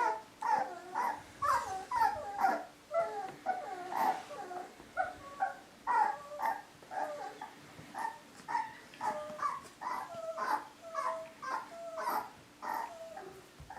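Young mini Bernedoodle puppies, about four and a half weeks old, whining: a long string of short pitched cries, roughly two a second.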